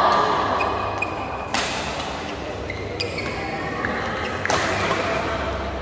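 Badminton rackets striking the shuttlecock in a doubles rally: a few sharp hits about a second and a half apart.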